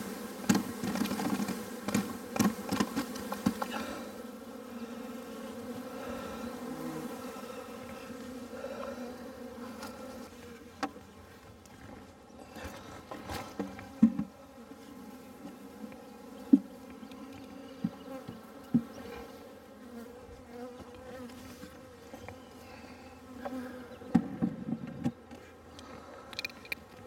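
Package honey bees buzzing in a steady hum as they are shaken from a plastic package cage into a hive box. A run of knocks in the first few seconds as the cage is tapped and shaken out, then scattered clicks and thumps as hive woodwork is handled.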